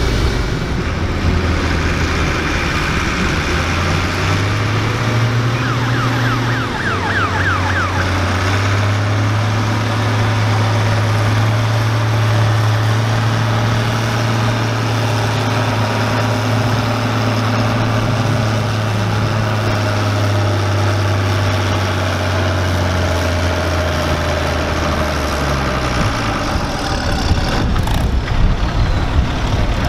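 Allis-Chalmers farm tractor engine running hard under full load while dragging a weight-transfer pulling sled: a loud, deep, steady drone that climbs a little early on, holds one pitch through most of the pull, then falls away near the end as the tractor slows.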